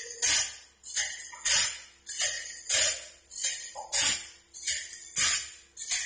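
Automatic band-saw blade sharpener grinding the teeth of a wide sawmill band-saw blade: a harsh metallic grinding rasp each time the wheel passes a tooth, repeating a little under twice a second over a steady hum.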